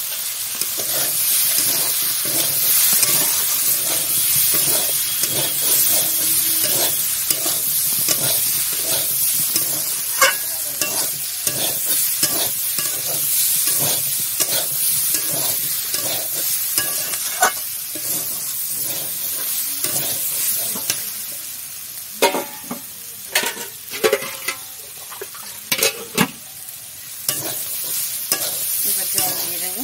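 Cut vegetables sizzling in oil in a metal pan, freshly dusted with turmeric, while a spatula stirs and scrapes them in regular strokes. Late on, the sizzle drops and a few sharp knocks stand out.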